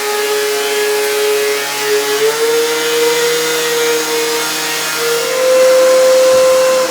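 An electric woodworking power tool, a saw or planer, running at speed through pine boards. Its high motor whine sags slightly and recovers a couple of times as the wood loads it, and starts to wind down at the very end.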